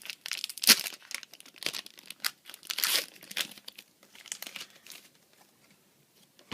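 Baseball card pack wrapper being torn open and crinkled by hand: a rapid, irregular run of crackles that dies away about five seconds in.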